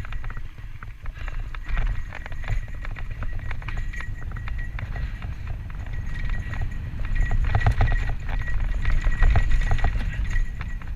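Santa Cruz Tallboy LTc mountain bike descending a dirt singletrack at speed: a low rumble of tyres and wind on the camera microphone, with a constant clatter of chain and frame rattles over the rough trail, heaviest from about seven seconds in.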